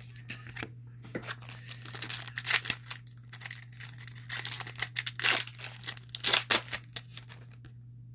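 A trading card pack's wrapper being torn open and crinkled, in an irregular run of crackly rustles, over a low steady hum.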